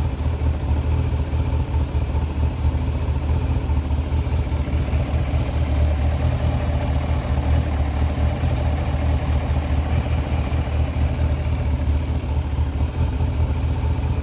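Kawasaki ZZR1100 inline-four motorcycle engine running steadily at idle, with the camshaft holder bolts refitted in new Helicoil thread inserts to cure a camshaft rattle.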